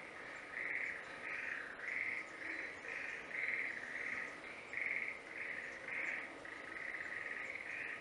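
A small animal calling steadily in the woods: short buzzy chirps on one pitch, repeated about twice a second, merging into a longer run near the end.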